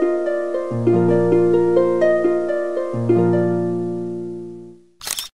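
Background music: a harp-like plucked melody in quick rising runs over two long low bass notes, fading out near the end. A short burst of noise follows just before the end.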